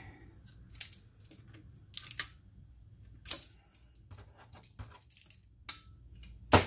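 Locking pliers being worked onto two pieces of thin sheet-metal license plate: a scattered series of sharp metallic clicks and clinks, the loudest near the end.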